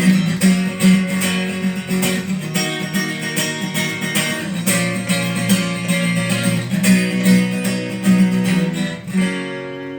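Guitar strummed in a steady rhythm as the song's instrumental ending plays out. The strumming stops about nine seconds in, and the last chord rings out and fades.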